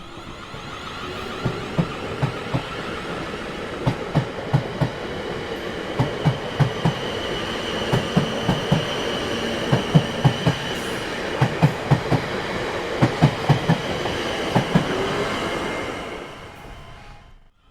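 A train's carriages passing, wheels clacking over rail joints in quick groups of beats over a steady rumble and a high, steady whine from the wheels on the rails. The sound fades away near the end.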